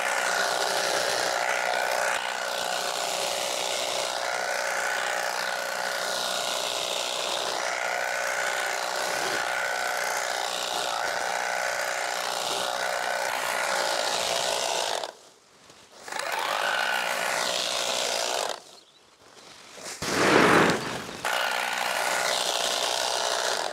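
Battery-powered tea-harvesting machine, a hedge-trimmer-type cutter, running steadily with a constant whine as it shears tea bushes. It stops twice for about a second, and a brief louder noise comes in the second pause.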